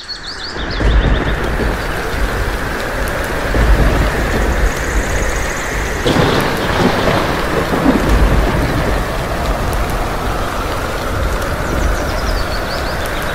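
Steady rain with thunder rumbling several times, and a sharper thunderclap about six seconds in.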